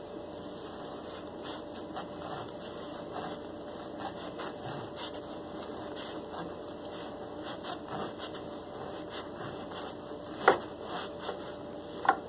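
Chef's knife sawing back and forth through a bagel, the crust rasping with each stroke. Two sharp knocks on the wooden cutting board near the end.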